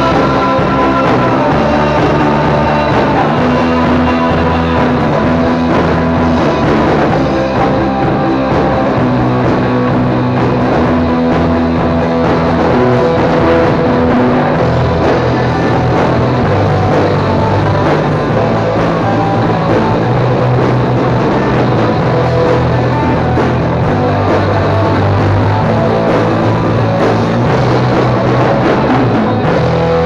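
Rock music: a full band track with a drum kit and an electric guitar part played on a Cort M200 electric guitar.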